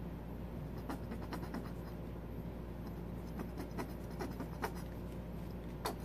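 Plastic squeeze bottle of yellow acrylic paint being squeezed and worked against a canvas, giving irregular small clicks and scratches. The bottle is almost empty of paint.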